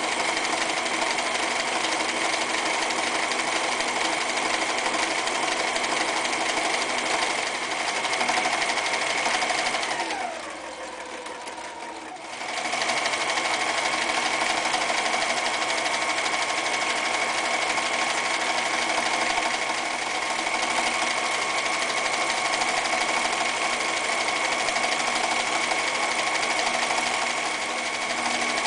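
Frister + Rossmann 1080 electric sewing machine stitching at a steady speed. About ten seconds in, it runs down with a falling whine and stops. About two seconds later, it starts up again and keeps sewing.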